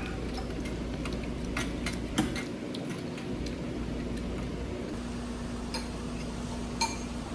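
A few light, irregular clicks and clinks of spoons against bowls during a meal, over a low steady hum.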